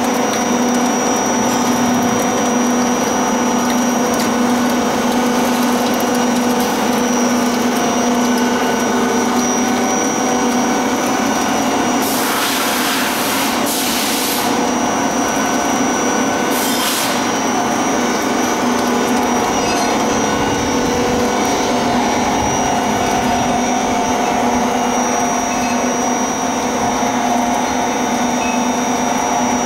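MK-65 screw oil press running steadily while pressing nigella seed, a continuous machine hum with a thin high whine over it. Two short rushes of noise come about twelve and seventeen seconds in.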